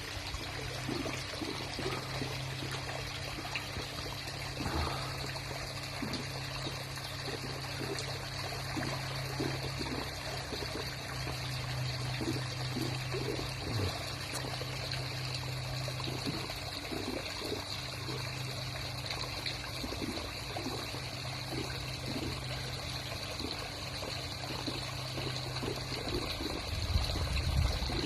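Swimming pool vacuum cleaner running in the water: a steady low motor hum and a faint high whine under continuous trickling, splashing water.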